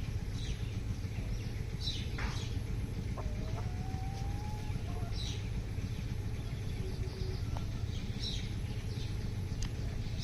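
Chicken clucking a few times, short and faint, over a steady low background rumble.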